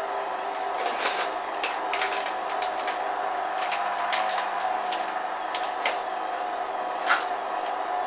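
Hoover front-loading washing machine running with a steady hum, with irregular sharp clicks and ticks on top, the loudest about a second in and again near the end.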